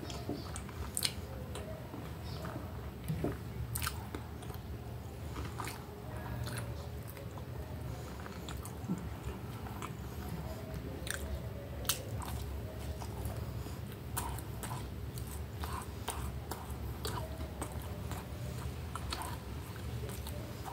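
Close-up mouth sounds of a person chewing and biting breaded chicken steak and seasoned spaghetti, with scattered sharp clicks and crunches, over a steady low hum.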